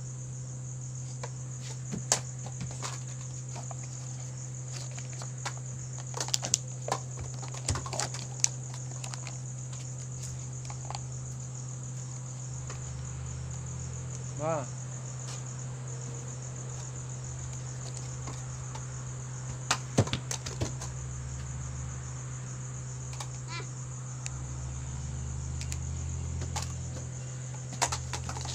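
A steady high-pitched whine with a low hum beneath it, broken by scattered light clicks and taps, several in a cluster about six to eight seconds in and again about twenty seconds in.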